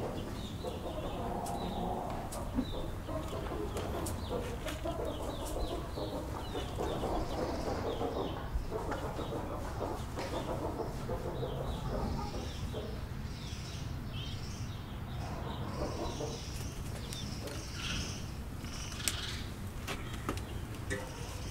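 A fire of dry brushwood catching and burning in an open clay hearth, with scattered sharp crackles. Birds chirp and cluck repeatedly over it.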